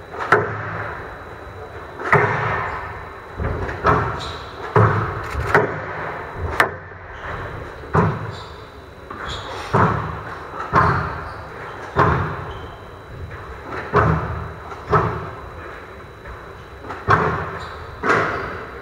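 Squash rally: sharp cracks of the ball off rackets and the walls, about one a second, each echoing in a large hall.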